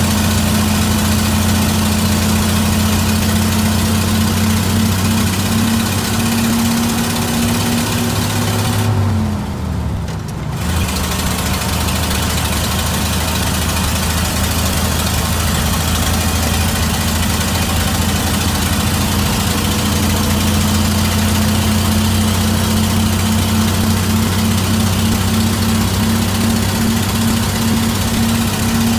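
A 1957 Mack B85 fire truck's dual-ignition six-cylinder engine running steadily under way. About nine seconds in, the engine note drops briefly, then it picks up again and climbs slowly in pitch.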